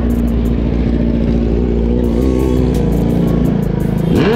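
Motorcycle engine running steadily at low speed in traffic, then revved hard near the end, its pitch climbing quickly.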